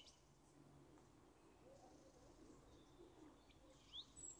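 Near silence, with faint bird chirps starting near the end.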